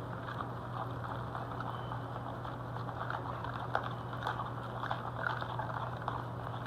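Light, irregular clicks and taps of a utensil against a bowl while batter is being mixed, more frequent in the second half, over a steady low hum.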